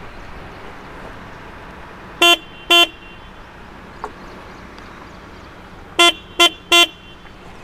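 Benelli TRK 502X motorcycle's stock horn sounded in short beeps: two about two seconds in, then three quick ones near the end. It is a single steady pitch that the owner finds far too weak for the bike, smaller than a scooter's horn.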